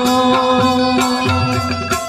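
Live Balochi folk music from a small ensemble: a long held instrumental note with its overtones over a quick, regular beat of short strikes.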